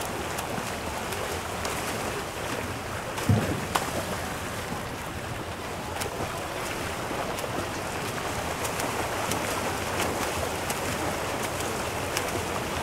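Backstroke swimmers' arms and kicks splashing through pool water, a steady wash of churning water. A brief thump about three seconds in, with a smaller one just after.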